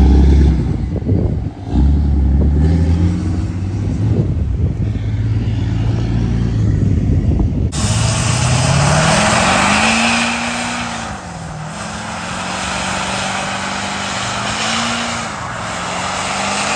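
Diesel pickup truck engines running and revving. The pitch climbs as they accelerate, and the engine note rises and falls twice in the second half. The sound changes abruptly about eight seconds in.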